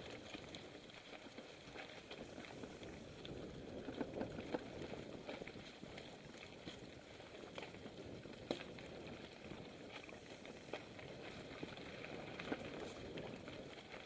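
Mountain bike rolling along a dirt singletrack: a steady rush of tyre and trail noise with scattered sharp clicks and knocks as the bike jolts over bumps.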